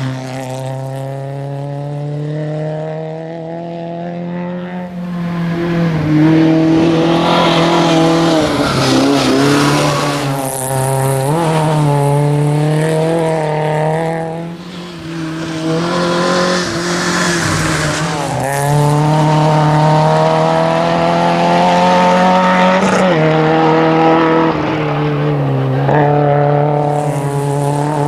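Opel Corsa GSI rally car's four-cylinder petrol engine revving hard through the gears. The pitch climbs and then drops sharply at each shift, over and over.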